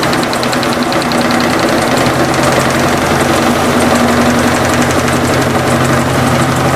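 Electrolux LT15F washing machine spinning, with a fast, steady rattling knock over its hum: the rear suspension rod moving loosely inside its support, which the owner takes for wear in the support. This is the machine's loud spin-cycle noise.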